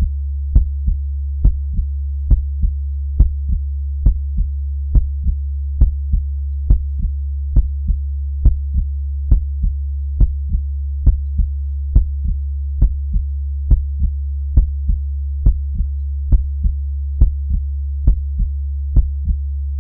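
Heartbeat sounds: a slow, steady lub-dub, each beat a double thud, at about seventy beats a minute over a continuous low hum.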